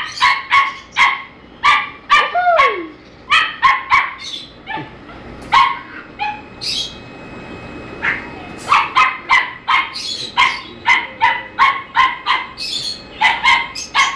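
Puppies in a pen barking over and over in short yaps, about two a second, with a brief lull about six seconds in before the barking picks up again faster.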